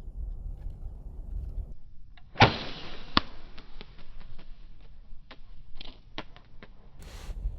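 One sharp snap of a bow being shot about two and a half seconds in, followed by a string of lighter clicks and knocks. Wind rumbles on the microphone before it, and there is a brief rush of noise near the end.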